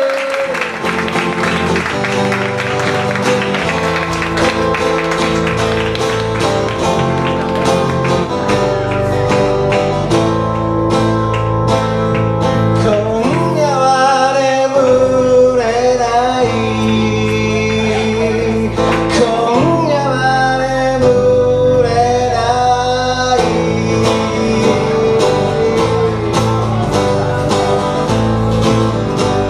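Live guitar duo playing a song: two guitars strum an intro, then a man's singing voice comes in over them about twelve seconds in.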